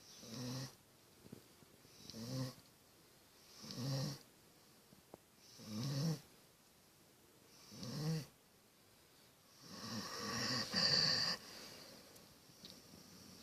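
German Shepherd–husky mix dog snoring in its sleep: five short snores about two seconds apart, then a longer, louder drawn-out snore near the end.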